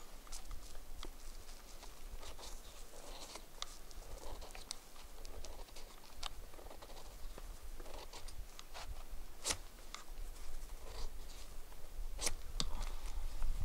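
Small wood-burning camp stove crackling, with irregular sharp pops and snaps.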